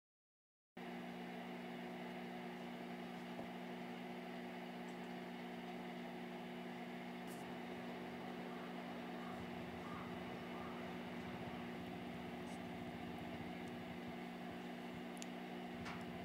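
A steady electrical or mechanical hum with a few low droning tones, starting abruptly just under a second in, with a few faint clicks near the end.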